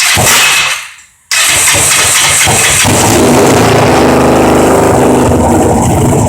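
1994 Kawasaki Ninja 500's parallel-twin engine being started: a short first attempt on the electric starter, then the starter cranks again and the engine catches about three seconds in, runs loudly for a few seconds, and cuts off suddenly near the end. The run is short-lived, with the starter clutch still hanging up.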